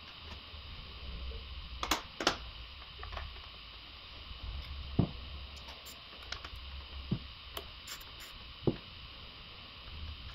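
Scattered light clicks and taps, about nine in all, from small tools and parts being handled in a car's engine bay, over a steady background hum.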